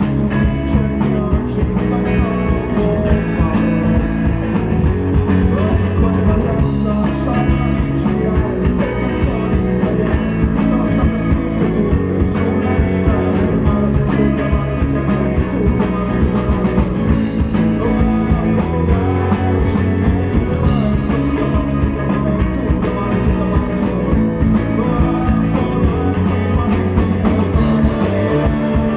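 Rock band playing live, electric guitar and drum kit loud and steady throughout.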